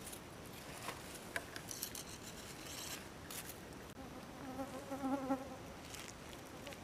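A flying insect buzzing close by for about two seconds, starting around four seconds in, wavering in pitch as it moves. Underneath are a steady background hiss and scattered small clicks and rustles of dry leaves.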